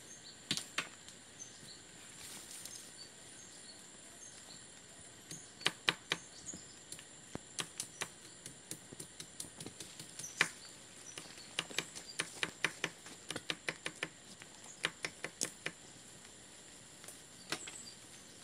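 Irregular sharp knocks and clicks, at times in quick runs, over a steady high-pitched insect buzz of the forest.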